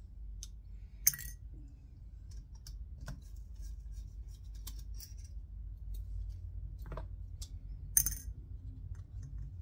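Small metal tools and parts being handled on a workbench: scattered light clicks and taps, with two sharp metallic clinks, one about a second in and one near the end.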